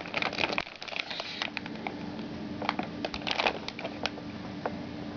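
Plastic wrapping around a new motherboard crinkling and crackling as it is handled, in two bursts about a second and a half long, the second about three seconds in.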